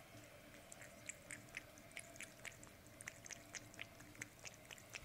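Tabby cat lapping chocolate milk from a mug: a run of short, quick tongue clicks, about four a second, starting a little under a second in.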